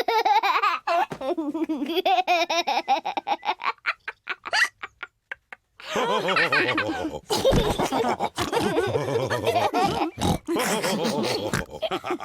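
Cartoon pig characters laughing together. The laughter breaks off for about a second near the middle and then starts up again.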